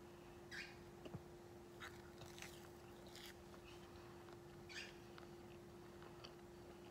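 Faint, wet chewing of stale marshmallow Peeps: a few soft squishes and mouth clicks spread through the first five seconds, over a steady low hum.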